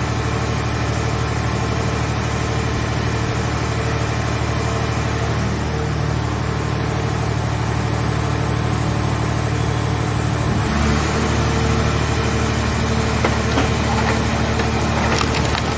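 Scrap car baler's power unit running with a steady engine hum. Its note changes about two-thirds of the way through, and a few sharp clicks come near the end.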